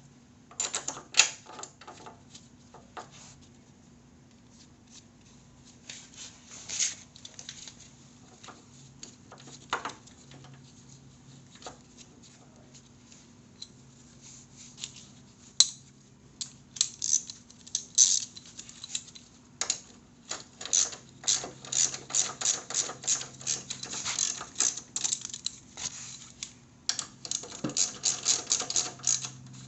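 Hand ratchet wrench clicking as a bolt is run in. The clicks come in scattered short strokes at first, then in a steady run of several clicks a second through the second half.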